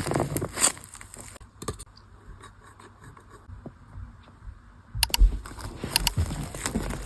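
Hands handling craft materials: scattered clicks, light scrapes and rustles, quieter in the middle, then a louder run of clicks and soft thumps near the end.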